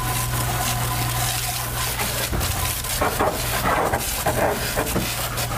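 A hard jet of water hissing and spattering against a car wheel and tyre, rinsing off the wheel cleaner and brake dust, with a steady low hum underneath.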